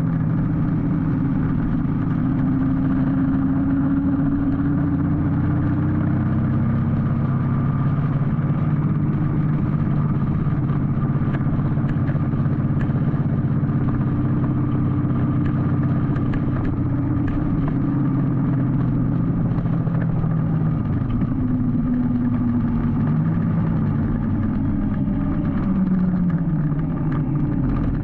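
Harley-Davidson Street Glide's Milwaukee-Eight 107 V-twin engine running steadily at low revs, with a few slight rises and falls in pitch.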